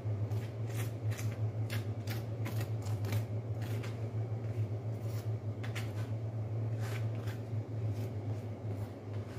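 Garlic butter being rubbed by hand over a naan on a hot iron tawa, giving light, quick crackles and pats, a few a second at first and then more scattered. A steady low hum runs underneath.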